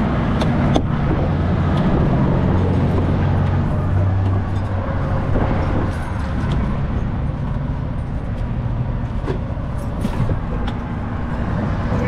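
Heavy diesel truck engine idling with a steady low hum over traffic noise on a bridge, the hum strongest in the first half. A few sharp clicks and knocks about half a second and a second in.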